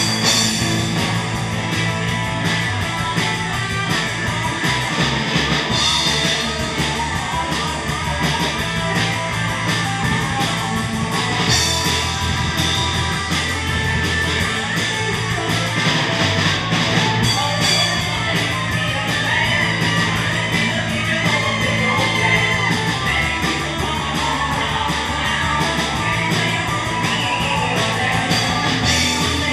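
Live rock band playing through PA speakers, with electric guitar, drums and singing.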